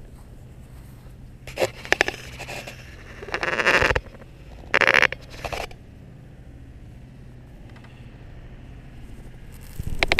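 A few short scraping, rustling bursts as a camera strapped to a dog's back rubs against grass and fur while the dog rolls on its back. Near the end a louder rough rushing noise starts as the dog gets up and moves off.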